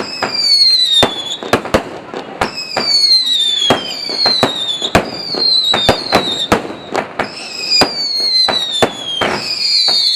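Aerial fireworks display: a quick series of sharp bangs from bursting shells, with whistling shells heard about every second or two, each whistle falling in pitch as it goes.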